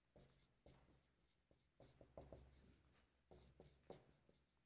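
Faint marker on a whiteboard: short, irregular scratches and taps in small clusters as handwriting is put on the board.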